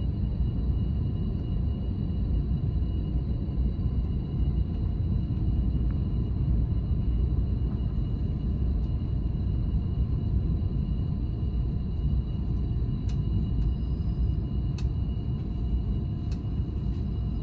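Steady low rumble with faint steady whining tones from a DSB IR4 electric multiple unit standing at a station platform, its onboard equipment running, heard inside the carriage. A few sharp clicks come near the end.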